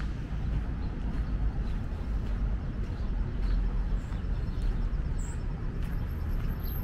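City street ambience: a steady low rumble of traffic, with a few faint high chirps about four and five seconds in.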